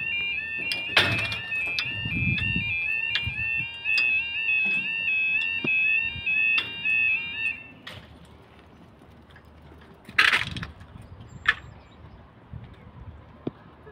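Level crossing audible warning alarm sounding a loud, high two-tone warble that alternates rapidly in pitch, then stops suddenly about eight seconds in. A short loud noise follows a couple of seconds later.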